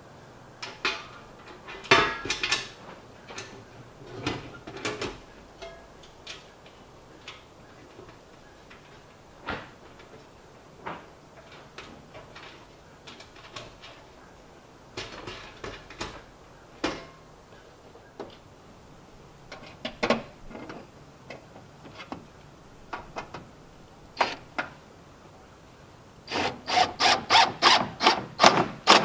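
Galvanized sheet-metal stovepipe and wall-thimble parts being handled and fitted: scattered clanks, taps and scrapes of thin steel. Near the end comes a quick run of about ten sharp knocks.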